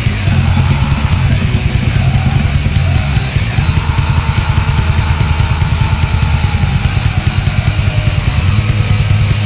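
Grindcore song by a metal band: distorted guitar with fast, dense drumming.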